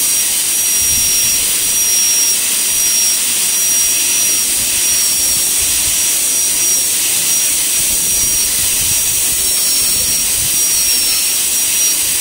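High-speed air-turbine dental handpiece running with its water spray, the bur cutting the labial surface of a model incisor: a steady high-pitched whine that wavers slightly under load, over a hiss.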